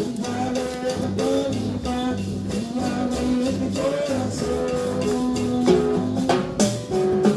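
Live praise-and-worship band music: guitar and bass under a melody held in long notes, over a steady drum beat.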